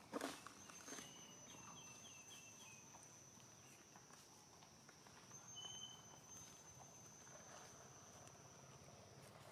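Quiet outdoor ambience: a steady, thin, high insect whine, a brief run of high chirps about two seconds in, and a couple of soft rustles near the start.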